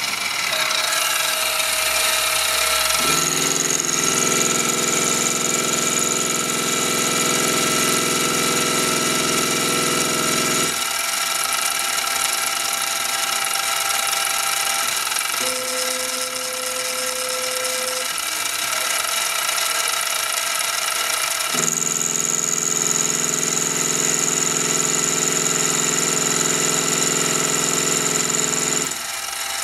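Mini milling machine running steadily while its Arduino-controlled stepper motors drive the automatic passes of an end mill cutting the flats of a small hexagon: two long motor runs of about seven seconds each, with a shorter motor move between them, each adding a steady hum and a high whine over the mill's running.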